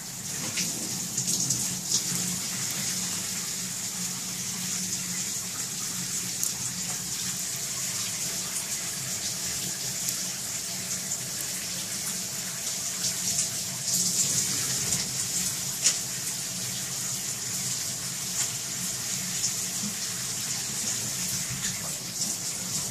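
Thin stream of water running steadily from a faucet into a sink basin, with a few brief splashes.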